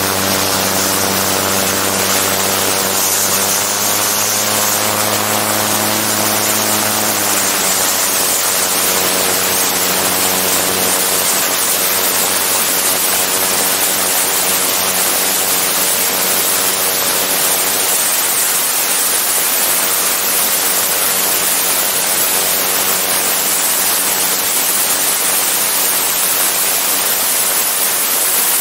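Gyroplane engine and propeller running in low flight under heavy wind rush on a camera mounted on the airframe. The engine note rises slightly about four seconds in, drops to a lower pitch at about seven seconds, and is then mostly buried under the wind.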